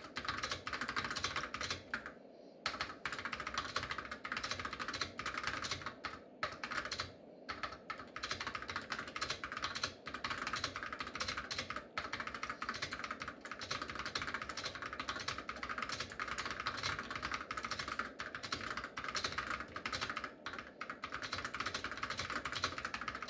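Typing on a Memorex 2051 keyboard with MicroSwitch SD series Hall-effect key switches, unlubricated and with the solenoid clicker switched off: a fast, continuous stream of key clacks, with brief pauses about two and seven seconds in.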